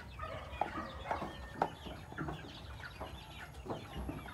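Chickens clucking, a scatter of short, sharp calls.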